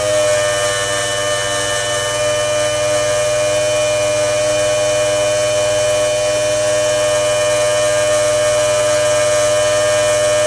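Small Drummond electric inline pump running steadily with a high, even whine as it pumps rainwater out of the boat's hull through hoses.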